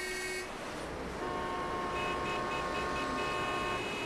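Car horns honking in a traffic jam over the steady noise of engines and tyres: a short toot at the start, then long held horn blasts, with a few quick beeps about two seconds in.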